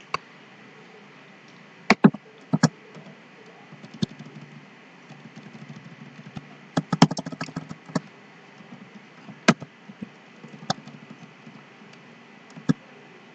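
Typing on a computer keyboard: scattered key presses, single taps and short runs of quick keystrokes, the busiest run about halfway through, over a faint steady hiss.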